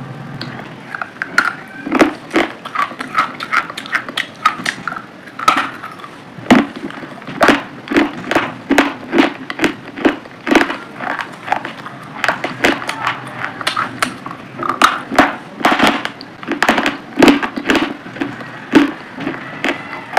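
A person chewing pomegranate arils: wet, crunchy crackling bites, about one to two a second.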